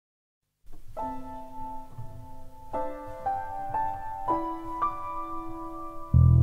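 Background music: a slow keyboard melody of held notes starts after a brief silence, and a loud low sustained note comes in near the end.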